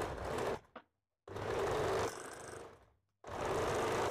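Electric sewing machine stitching a dart through blouse fabric, running in three short bursts with silent breaks between them.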